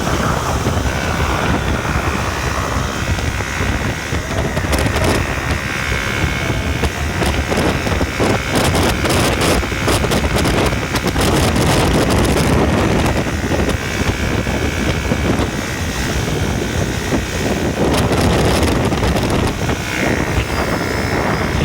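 Panther 125cc ATV engine running while riding, with heavy wind buffeting on the microphone.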